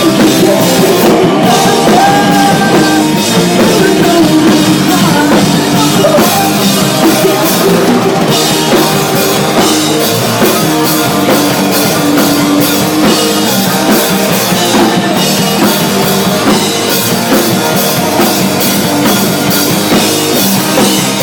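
Punk rock band playing live and loud, with a drum kit keeping a steady beat under the other instruments.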